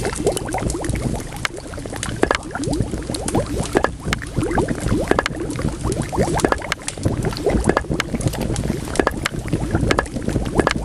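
Liquid bubbling steadily at the boil, a thick run of short gurgling bubble sounds, with sharp crackles from burning firewood scattered throughout.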